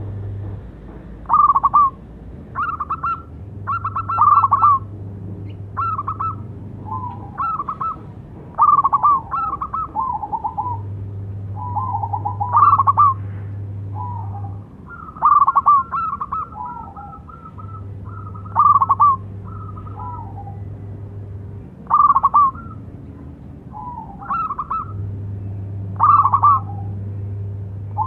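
Zebra dove (perkutut) cooing: short, rapid trilled coo phrases repeated every second or two.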